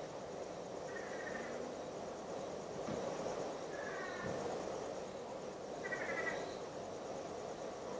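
An unidentified nocturnal animal calling: three short calls, each a cluster of stacked notes that slip down in pitch, repeated about every two to three seconds over a steady background hum.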